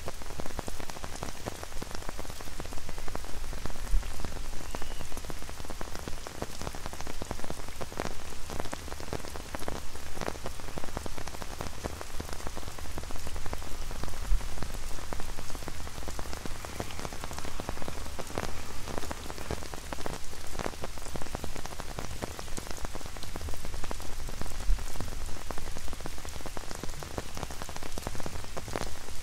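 Steady light rain pattering on an umbrella overhead, many separate drop taps over an even hiss of rain on wet paving.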